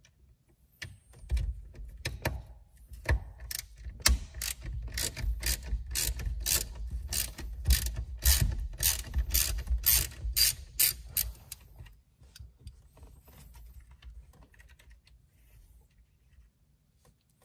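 Ratcheting driver clicking in a steady run, about two to three clicks a second, as it backs out the small T20 Torx screw holding the ignition switch in a steering column. The clicking stops about two-thirds of the way through.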